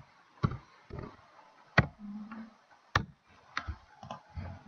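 Computer keyboard and mouse clicks: a handful of sharp, separate clicks at uneven intervals as a joint name is typed and the next joint is selected.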